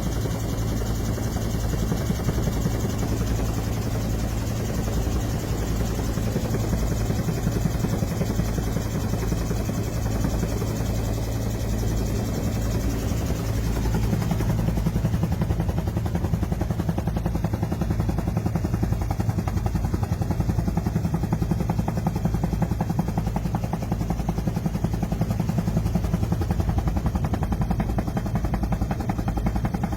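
Police helicopter in flight: steady rotor chop with a low engine and transmission drone, a little louder from about halfway through.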